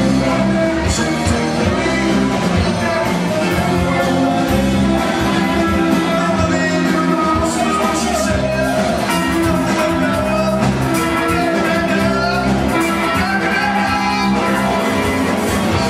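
Live rock band playing: electric guitar, electric bass and drum kit, with a lead vocal.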